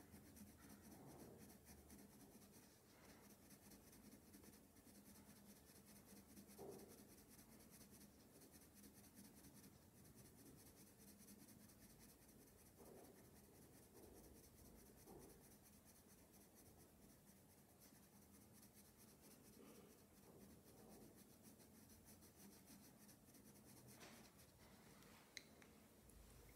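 Faint scratching of a dark coloured pencil shading on paper in short, soft strokes, with a couple of light clicks near the end.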